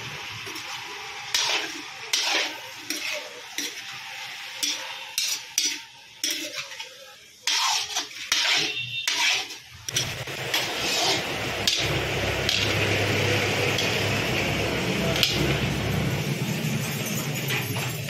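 A steel spoon stirring chicken pieces in a metal kadai, with repeated sharp scrapes and clinks against the pan. About ten seconds in this gives way to a steadier frying hiss and low hum, with occasional spatula strokes as the chicken cooks.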